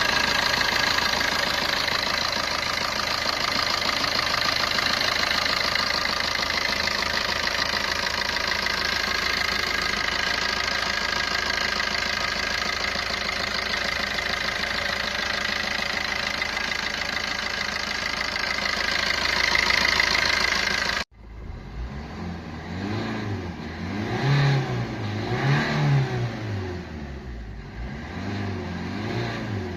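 Maruti Ertiga engine running steadily, freshly fitted with a new timing chain and with no chain rattle. About two-thirds of the way through the sound cuts off abruptly, and a quieter engine sound follows, rising and falling as it is revved several times.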